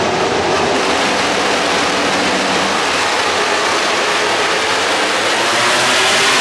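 A full grid of MotoGP racing motorcycles, four-cylinder 1000 cc prototype engines, revving hard together as a dense, continuous engine noise at the race start. It grows a little louder near the end as the bikes pull away and pass.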